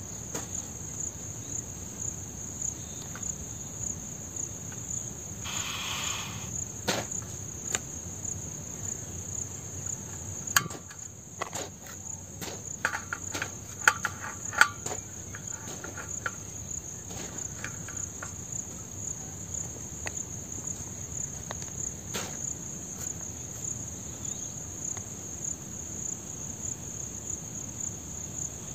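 Insects in the grass chirring in a steady high-pitched drone, with scattered sharp metal clicks and clinks as a portable gas stove and a metal pot are handled, most of them around the middle.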